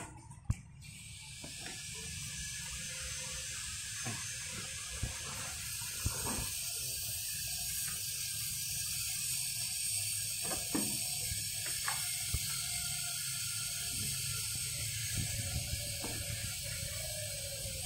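Plastic stretch wrap film being pulled off a hand roll and wound around a machine: a steady high hiss starting about a second in, with scattered knocks and rustles from the cardboard padding being handled.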